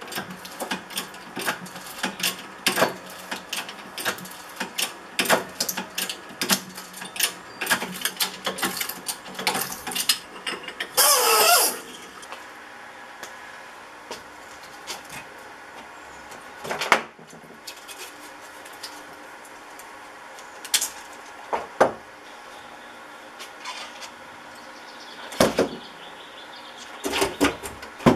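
Metal clicking, clinking and scraping as small transformers are broken apart for their copper windings. A dense run of sharp clicks fills the first ten seconds, a loud, wavering scrape lasting about a second comes just after eleven seconds, and then there are scattered knocks and clinks.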